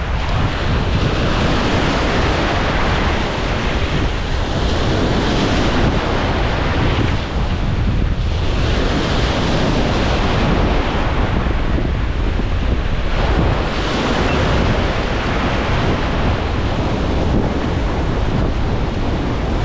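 Ocean surf washing up over a rock ledge, the whitewater swelling and easing several times, with strong wind buffeting the microphone.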